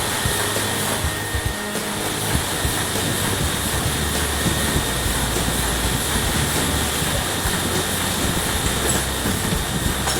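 Printing-shop machinery running continuously: a steady, dense mechanical clatter of rapid fine clicks over a low hum and hiss.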